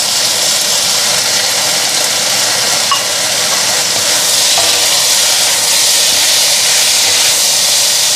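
Raw shrimp and vegetables sizzling in a hot stainless steel wok: a steady frying hiss, with a few light knocks as a wooden spatula stirs them.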